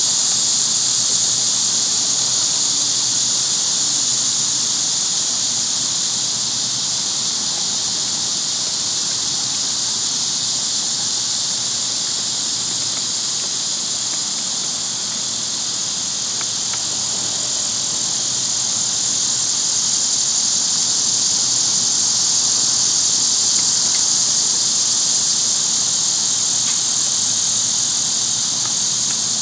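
Chorus of cicadas: a loud, steady, high-pitched hiss that eases off a little about halfway and swells again later.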